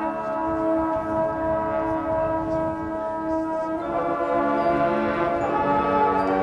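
Marching band winds and brass holding sustained chords, moving to a new, fuller chord about four seconds in, with front-ensemble mallet percussion ringing underneath.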